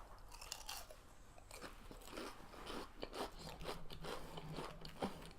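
A person biting and chewing crunchy fast food close to the microphone: a string of small, irregular crunches.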